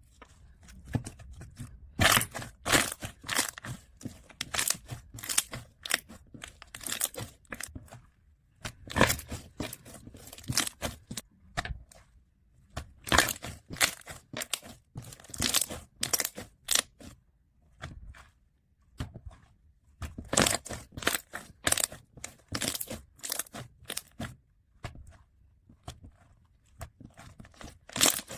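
Slime being pressed, squished and stretched by hand, giving bursts of crackling and popping, with short pauses between handfuls.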